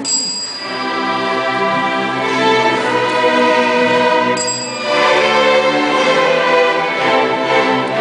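School string orchestra of violins, cellos and double basses playing, switching abruptly to a different passage partway through. Each switch is marked by a short, high electronic beep, the piece's remote-control cue for changing the channel: once at the start and again about four and a half seconds in.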